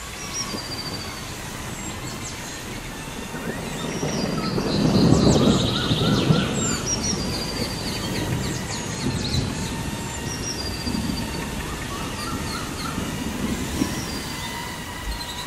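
Birds chirping and trilling over a faint steady hum, with a louder rushing noise about four to six seconds in.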